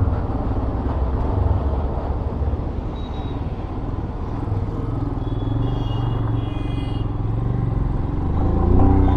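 Royal Enfield Himalayan's single-cylinder engine running steadily under way, a low rumble, with the engine note rising near the end as it picks up speed.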